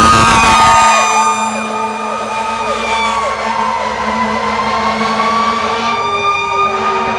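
Fire truck sirens: an electronic siren yelping in quick repeated sweeps, over a slower siren tone that falls and then rises again. There is a loud wash of engine and road noise in the first second.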